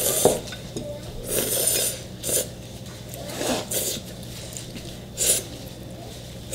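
Spicy instant noodles slurped off chopsticks, in about five short noisy slurps.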